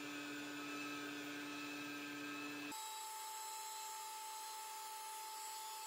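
High-speed tool post grinder running at about 6,000 RPM, grinding the bore of a Benchmaster horizontal mill's spindle, heard faintly as a steady whine. About three seconds in, the tone jumps abruptly to a higher pitch and the low rumble drops away.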